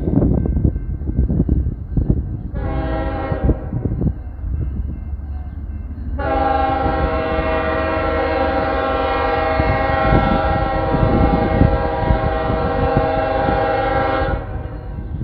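Horn of Union Pacific locomotive 8126 sounding for a grade crossing as the train approaches: a short blast about three seconds in, then a long blast of about eight seconds, its several chime notes held together. Underneath runs the low rumble of the train.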